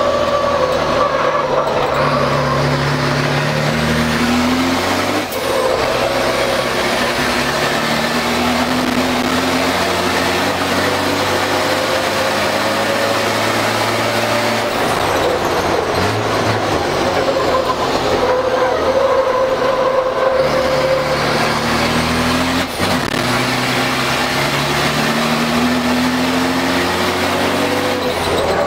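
Mercedes-Benz truck's diesel engine heard from inside the cab, pulling hard. Its note climbs in pitch again and again as it works up through the gears, with brief drops at the gear changes.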